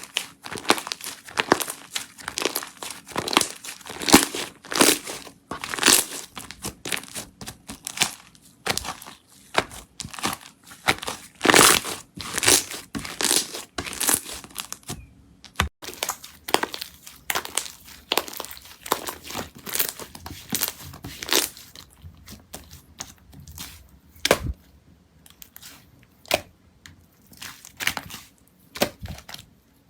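Hands squishing and stretching slime, making a dense run of irregular sticky crackles and pops that thin out in the last third.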